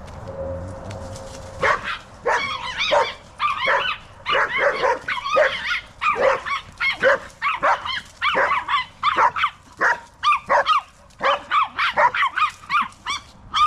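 Chihuahua barking territorially in rapid, high-pitched yaps. The barking starts about two seconds in and goes on in quick clusters of several barks each.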